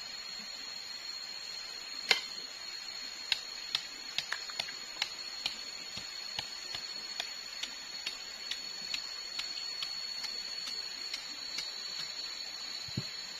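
A steady high-pitched insect drone from the forest. From about two seconds in it is joined by a fairly regular run of sharp ticks, about two a second, the first one the loudest.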